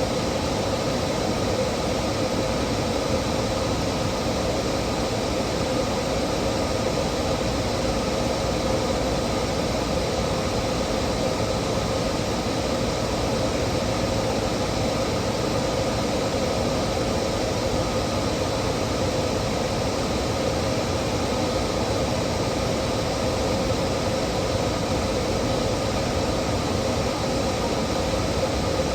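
Steady, unchanging mechanical hum with hiss, holding a few constant tones.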